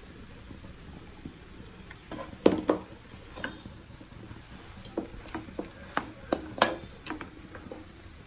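A slotted metal spatula stirs grated sweet potato and jaggery in a nonstick kadai, with irregular clacks and scrapes against the pan. The loudest knocks come about two and a half seconds in and again about six and a half seconds in.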